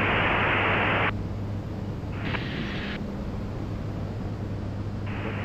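Steady drone of the Diamond DA62's twin diesel engines in cruise. A loud burst of radio static lasts about a second at the start, and a shorter, fainter hiss comes about two and a half seconds in.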